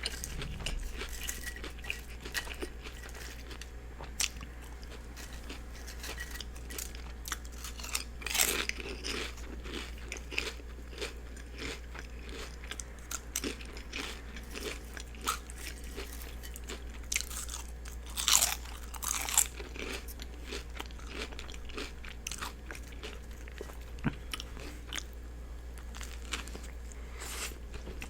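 Close-miked chewing and biting of a turkey and cheese sub with lettuce and onions: wet mouth clicks and crunchy bites, with louder crunches about eight seconds in and again around eighteen to nineteen seconds. A steady low hum runs underneath.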